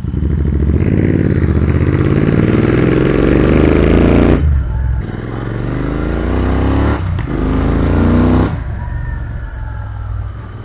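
Royal Enfield Continental GT650's parallel-twin engine and exhaust accelerating through the gears: the pitch climbs, breaks briefly at upshifts about four and a half and seven seconds in, and climbs again. About eight and a half seconds in the throttle eases off and the revs fall.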